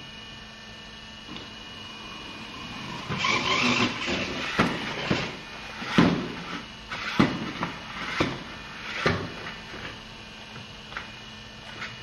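Small remote-control car whirring as it drives in spurts, with a string of sharp knocks about once a second through the middle of the stretch.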